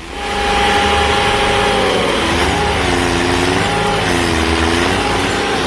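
A heavy machine's engine running loud and steady, its pitch sagging and recovering several times as it takes and sheds load.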